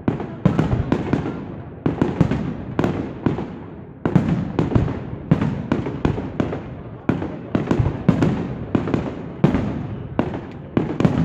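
Aerial fireworks display: shells bursting overhead in quick succession, a string of sharp bangs, each fading in a short rumbling tail, with brief lulls between volleys.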